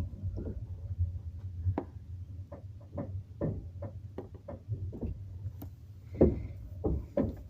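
Passenger train wheels knocking over rail joints, a run of sharp knocks about every half second, loudest about six seconds in, over a steady low rumble of the moving carriage, heard from inside the compartment.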